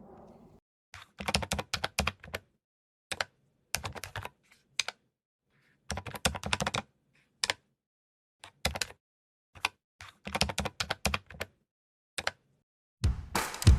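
Computer keyboard typing in short bursts of rapid key clicks, separated by complete silence. Music with drums comes in near the end.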